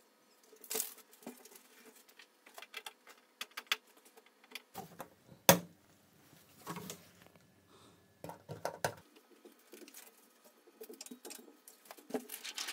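Hands working on an opened LCD TV's backlight assembly: scattered light clicks, taps and rustling of plastic sheet and metal panel, with one sharp knock about five and a half seconds in.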